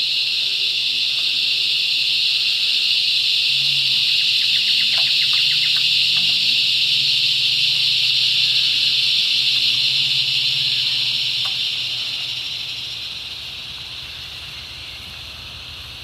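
Eastern double drummer cicadas (Thopha saccata) singing: a loud, steady, high-pitched buzzing drone that fades away over the last four seconds or so.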